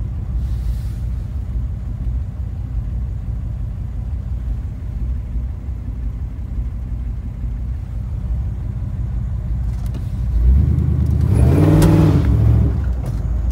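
Pickup truck engine idling steadily, heard from inside the cab, then revved up once and let back down near the end.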